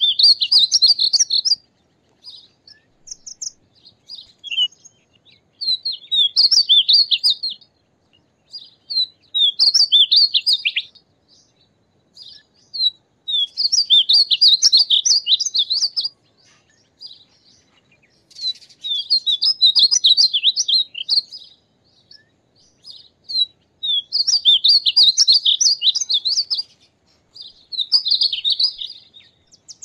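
Male painted bunting singing: a run of quick, high, warbled notes lasting a couple of seconds, repeated every few seconds, with short single notes between songs.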